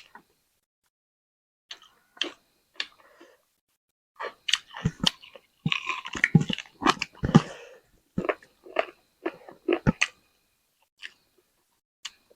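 Close-miked chewing of chicken: irregular wet smacks, clicks and crunches of a mouth eating, sparse at first and thickest in the middle stretch.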